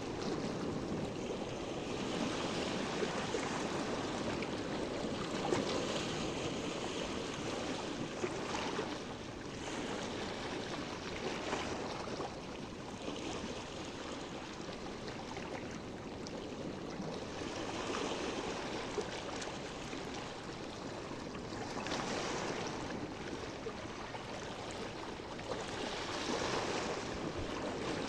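Sea waves washing: a continuous rush of water that swells and eases every few seconds.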